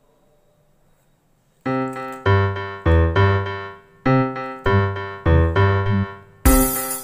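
Background keyboard music with piano-like chords starts about a second and a half in, after near silence. Near the end a bright, hissing sparkle sound effect comes in over the music.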